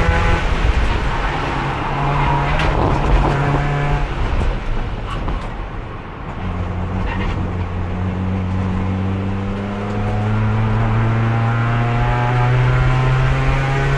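Race car engine heard from inside the car. It runs at a steady pitch, eases off about four seconds in, then pulls back up with a slow, steady climb in pitch. The car is held in fourth gear because its transmission has no third gear and won't shift at speed.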